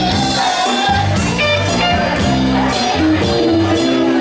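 Live rock band playing: electric guitar and bass over a steady drum beat, loud and reverberant as heard from the crowd in a bar.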